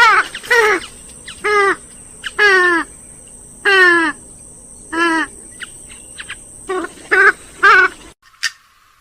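Grey-headed swamphen calling: a run of loud calls, each sliding down in pitch, repeated every half second to a second, breaking off abruptly about eight seconds in.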